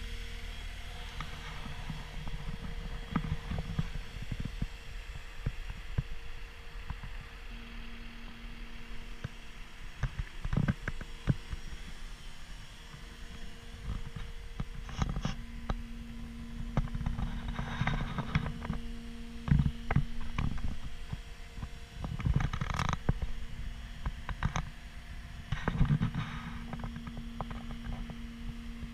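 Scattered knocks, bumps and rustles of someone moving around and climbing into the cab of a compact track loader, over a steady low hum.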